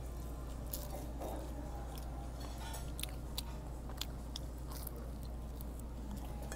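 A person chewing a mouthful of garlic naan topped with curry chicken close to the microphone: irregular wet mouth clicks and smacks over a steady low hum.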